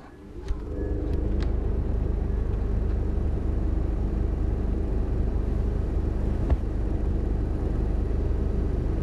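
Electric table fan switched on with a click, its motor spinning up within about a second and then running with a steady low hum and whir.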